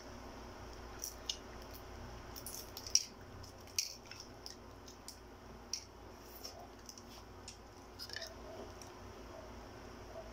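Fingers peeling the shell off a balut (boiled fertilized duck egg): scattered small, sharp clicks and crackles of eggshell breaking away, thickest in the first few seconds and again later on.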